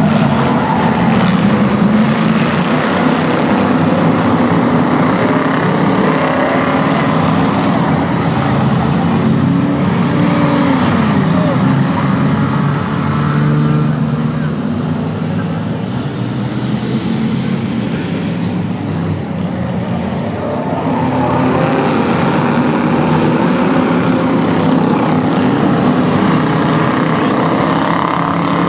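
A pack of race cars and a school bus racing around an oval track, many engines running together, loud and steady, with engine pitch rising and falling as vehicles pass.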